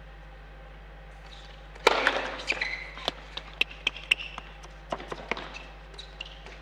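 Tennis ball handling on an indoor hard court: a loud sharp hit about two seconds in, then an irregular string of ball bounces and taps mixed with short high squeaks, thinning out near the end.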